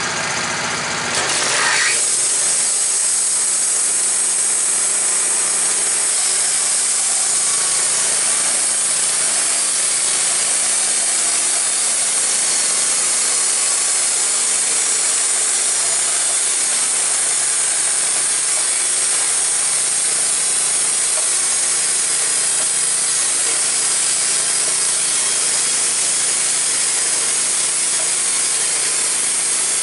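Wood-Mizer LT15 portable bandsaw mill's band blade sawing through a white oak log, driven by its engine. About a second and a half in, the engine's idle gives way to a steady, high sawing hiss that holds for the rest of the cut.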